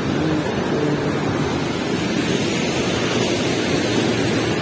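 Swollen, muddy floodwater rushing and churning below a river weir's gates: a steady, unbroken rushing noise, heavy in the low end.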